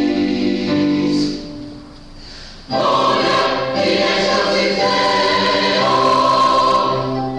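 Choir singing a sustained hymn-like piece; the sound thins out about a second and a half in, and the full choir comes back in strongly a little later.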